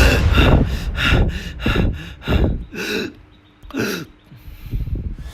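A person breathing hard and gasping: a quick run of short breaths, then a few longer gasps further apart.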